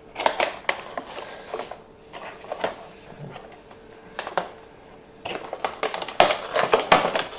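A cardboard collectible-figure box being opened by hand: scattered clicks, taps and rustles as the flap is pulled open and the contents are worked out, growing busier about five seconds in.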